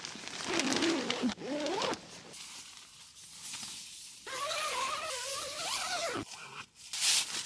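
A young Labrador retriever whining in two drawn-out, wavering stretches, the second higher than the first, with rustling alongside.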